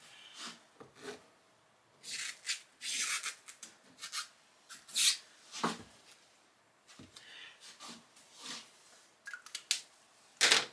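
Pen scratching on vinyl sheeting as it traces round the edge of a hardboard panel template, in short separate strokes. A sharper click comes near the end.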